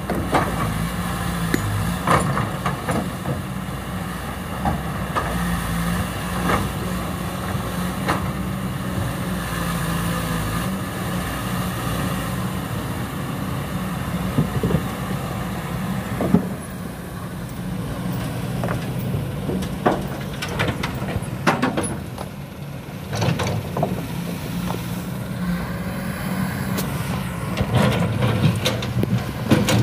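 Kobelco SK200 hydraulic excavator's diesel engine running steadily under working load while the bucket digs earth, with scattered knocks and clanks, more of them in the second half.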